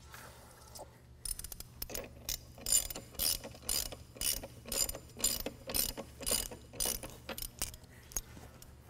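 Hand ratchet wrench clicking in short runs about twice a second, tightening the wedge nuts of a split-rim truck wheel a little at a time.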